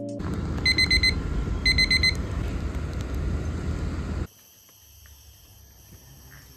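Electronic alarm beeping in two short bursts of quick beeps about a second apart, over a loud steady rushing noise. At about four seconds the sound cuts off suddenly to a quiet background of steady insect-like chirring.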